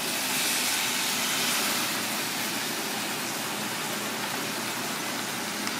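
Steady rushing kitchen background noise, with a brighter hiss over the first couple of seconds that then eases a little, and a faint click near the end.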